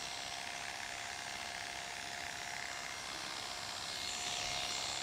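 Corded electric hair clippers running with a steady buzz, which grows a little louder and brighter about four seconds in.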